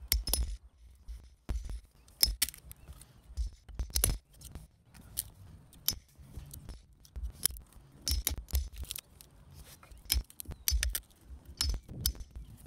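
Hammer striking a steel chisel to cut a stay notch into a timber strainer post: a series of sharp, ringing metallic strikes at an uneven pace, some single and some in quick clusters.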